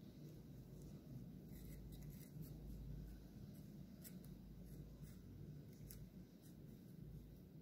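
Faint scraping and a few light ticks of a wooden stick spreading chocolate hazelnut spread around the inside of a waffle cone, over a low steady hum.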